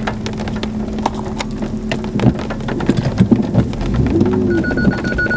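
Rain striking the vehicle in many irregular sharp taps over a steady hum and a low rumble. About four and a half seconds in, a steady high electronic tone starts.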